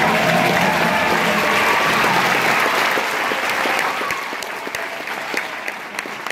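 Audience applauding in an auditorium as a song ends. The applause is full at first, then thins after about four seconds into scattered separate claps.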